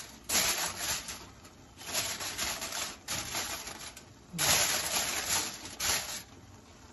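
Aluminium foil crinkling in about five short bursts as hands press and crimp it over the rim of a pan to cover the finished paella.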